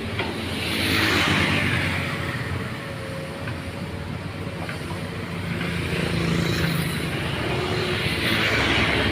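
Excavator's diesel engine running with a steady hum and a faint steady whine, swelling louder about a second in and again near the end.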